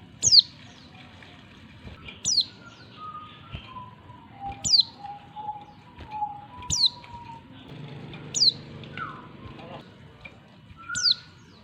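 Female oriental white-eye calling: six short, high, thin notes, each sliding sharply downward, spaced about two seconds apart. Fainter, lower whistled notes sound between them.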